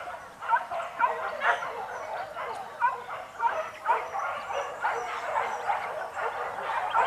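Hunting dogs barking and yelping in a rapid, overlapping chorus, several calls a second without a break: a pack giving tongue on the trail of a wild boar.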